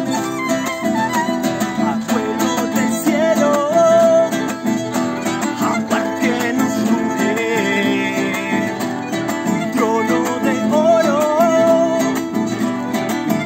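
Violin playing a melody with vibrato over acoustic guitar accompaniment, a violin-and-guitar duo.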